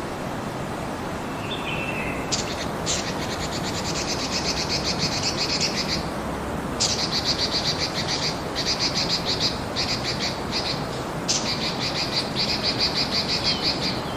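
Steady rain hiss, with a high, rapidly pulsed trill from a calling animal that starts about two seconds in and repeats in three long bouts.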